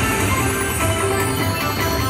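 Video slot machine's big-win celebration music: a melodic electronic tune over a steady low beat, marking the credit payout at the end of a bonus round.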